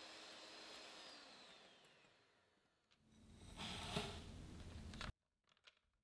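Cuisinart electric hand mixer beating egg whites, its motor whine falling in pitch and dying away as it is switched off about a second in. Then a soft rustling hiss of sugar being poured into the bowl, with a brief tap about four seconds in, cut off abruptly near the end.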